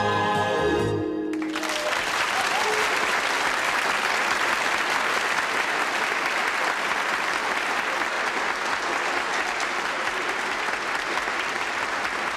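The last held chord of a song, sung with vibrato by two women and a group of male backing singers, cuts off about a second in. Sustained applause follows and carries on.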